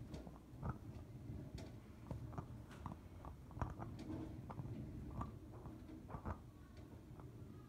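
Flames burning over metal salts in a row of glass beakers, a faint low rumble with irregular crackling and popping clicks throughout.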